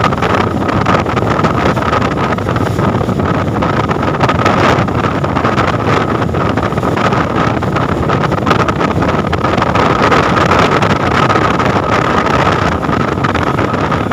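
Speedboat engines running at speed across open water, with heavy wind buffeting the microphone and a steady high whine throughout.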